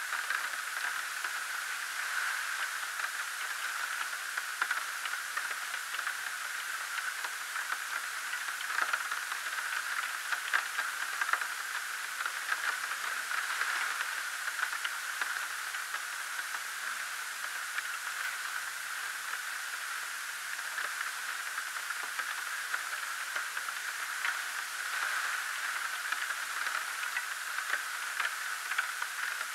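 Steady static hiss, strongest in a narrow upper-middle band, speckled with small crackles and clicks throughout.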